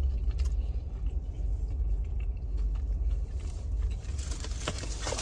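Steady low rumble of a car, with a few light clicks and rustles from about four seconds in.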